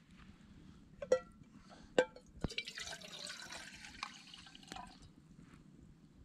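Metal camp cookware clinking three times with a short ring, then water being poured for about two seconds.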